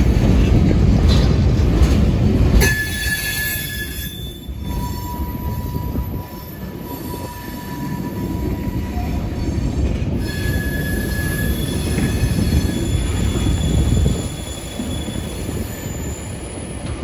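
Freight cars rolling slowly past at close range, their wheels rumbling on the rails and squealing in thin, steady high tones. The rumble drops off suddenly about three seconds in and again near the end as the last cars pass.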